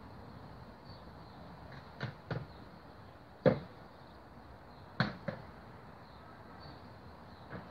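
Several sharp knocks at irregular intervals, some in quick pairs, the loudest about three and a half seconds in, over a faint steady background hiss.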